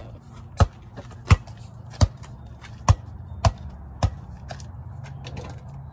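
A soccer ball bounced on a concrete driveway: six bounces a little under a second apart, stopping about four seconds in.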